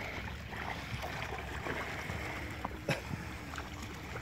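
Steady noise of water and wind, with one sharp knock just before three seconds in.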